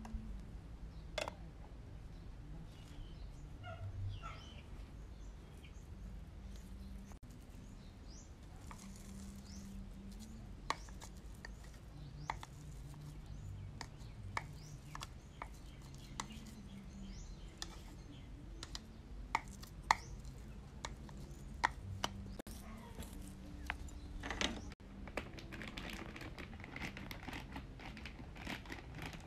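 Scattered light clicks and taps of a spoon scraping blended kale paste out of a plastic chopper cup onto a ceramic plate. Near the end comes a crackling rustle of a plastic cat-food bag being handled.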